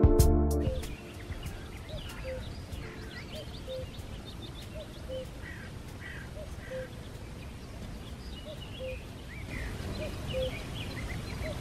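Dawn bird chorus at a lakeside: scattered high chirps from several birds, and one bird giving a short, low call over and over, about every three-quarters of a second.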